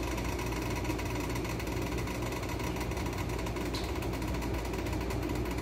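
Steady low electrical hum and whir of a small running fan motor, unchanging throughout.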